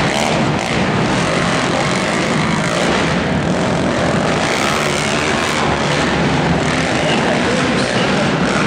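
Several quad ATV engines racing together, a loud steady buzz of overlapping engines at race throttle, heard inside an indoor arena.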